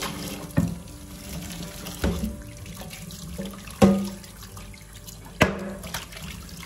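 Kitchen tap running into a stainless-steel sink while a pan is washed by hand under it. The pan knocks against the sink four times, the loudest just under four seconds in, with a short ring.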